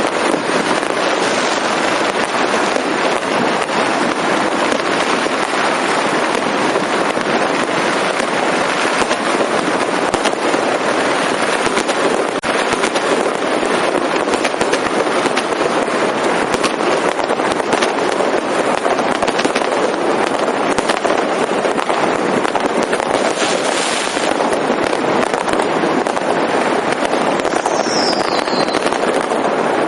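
Fireworks and firecrackers going off in a dense, unbroken crackle of countless small bangs. A brief falling whistle sounds near the end.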